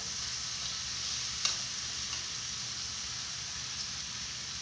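Chicken pieces in rica-rica sauce sizzling steadily in a pan on a gas stove as they are stirred, with one sharp click about a second and a half in.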